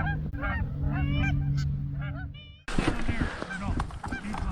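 Canada geese honking, many short calls overlapping in quick succession. About halfway through the sound cuts out abruptly, then resumes with more background noise and further honks.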